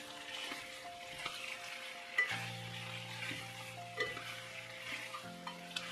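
Pasta being stirred and tossed through hot sauce in a sizzling pan, with a few sharp clinks of the utensil against the pan, under background music.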